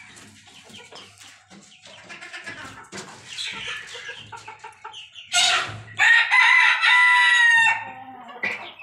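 Cochin bantam chickens clucking softly, then the rooster crows loudly about five seconds in: one long crow held for nearly two seconds, dropping in pitch at the end.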